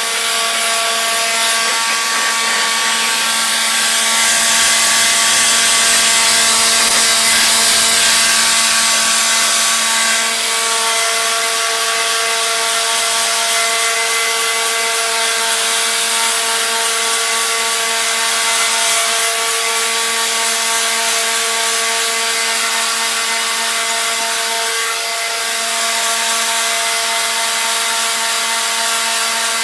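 Black+Decker cordless leaf blower running steadily: an electric motor whine over a loud rush of air from the nozzle, with a brief dip about three quarters of the way through.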